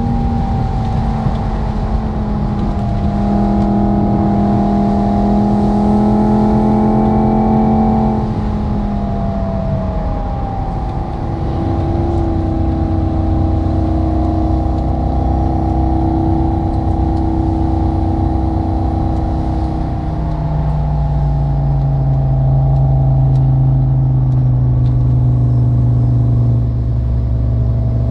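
Simulated sports-car engine and exhaust sound from a phone app that follows the real car's engine speed over OBD2: steady part-throttle running, the pitch falling about eight to ten seconds in as the revs drop, then a deeper steady drone from about twenty seconds in.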